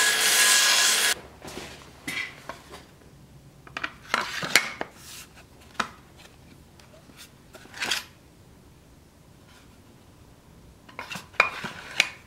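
A belt grinder sanding a wooden scabbard blank, cutting off abruptly about a second in. Then scattered scrapes and light clinks of a khukuri's steel blade being handled and slid against its carved wooden scabbard.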